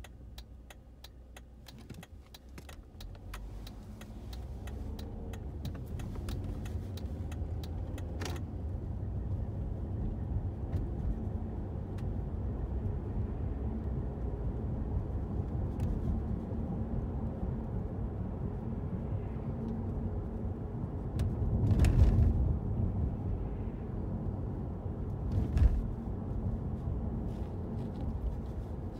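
Car cabin noise while driving: engine and road rumble rising as the car pulls away and picks up speed over the first several seconds, then running steadily with a faint hum. A run of sharp clicks comes through the first eight seconds, and about 22 seconds in there is a loud thump-like swell from the road.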